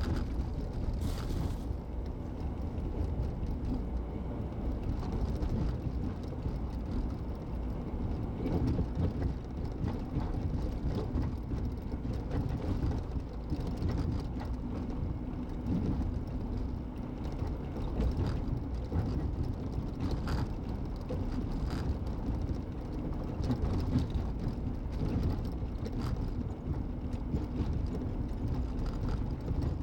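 Steady road and engine noise inside a car's cabin while cruising at about 50 mph, with a few faint clicks.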